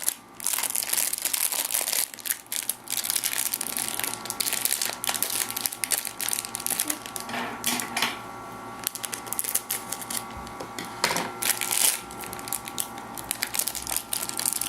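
Crinkly plastic packaging of a surprise egg and its toys crackling and rustling as it is unwrapped and handled by hand, in irregular bursts with a couple of short pauses.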